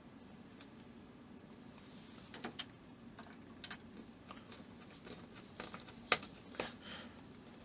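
Scattered light clicks and taps of small model-kit parts being handled and set in place, a pair about two and a half seconds in and the sharpest about six seconds in.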